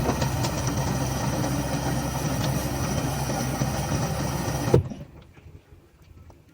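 Haier washing machine running its drum self-cleaning cycle: a steady motor hum with the drum turning. It cuts off suddenly about five seconds in.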